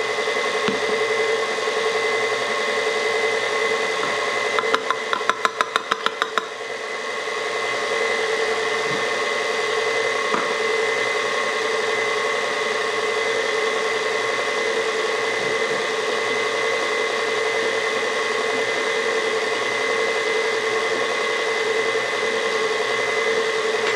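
Electric stand mixer running steadily with a constant motor hum as it mixes bread dough. About five seconds in, a quick run of about ten clicks.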